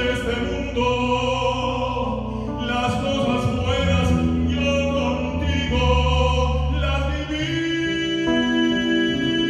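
Live band playing a slow bolero: a male voice holds long sung notes over bass and drums. Near the end the voice gives way to a guitar line.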